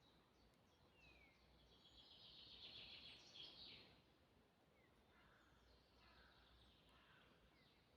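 Faint forest birdsong: scattered chirps and short calls, with a louder fluttering trill from about two to four seconds in.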